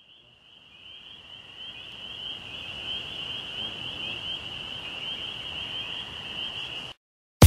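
A steady, high-pitched chirring tone with a fast flickering texture, fading in over about two seconds and then cutting off suddenly about half a second before the end.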